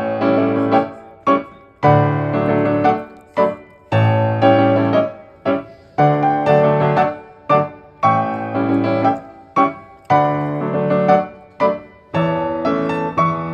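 Background piano music: a melody of struck notes played in short phrases about every two seconds.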